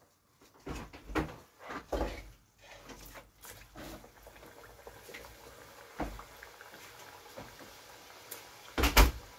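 Squashed, once-fried green plantain slices dropped by hand one at a time into a saucepan of hot cooking oil for their second fry: a series of plops and splashes, the loudest pair near the end, over the steady sizzle of the oil frying them.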